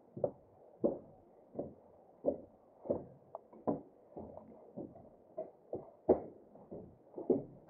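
Footsteps climbing the stairs and crossing the landing of a riveted steel footbridge: a steady run of dull thuds, about one every two-thirds of a second.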